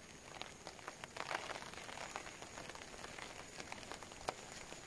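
Steady rain falling, with scattered close raindrops tapping sharply.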